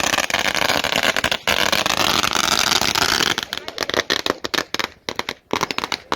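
A string of firecrackers going off in a rapid, continuous crackle of pops, thinning to scattered separate cracks after about three and a half seconds.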